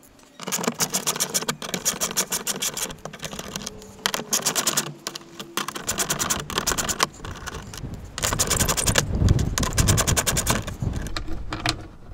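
Ratchet wrench clicking in rapid runs with short pauses, as the 7 mm hex nuts holding the plastic lower engine cover are undone.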